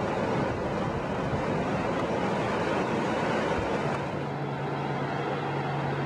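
Surf washing on a sandy beach with wind on the microphone, a steady rushing noise. About four seconds in, a steady low hum joins it.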